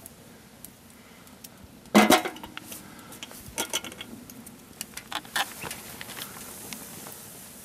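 Metal cookware and utensils clanking and clinking during camp cooking: one loud clank about two seconds in that rings briefly, then several lighter clinks.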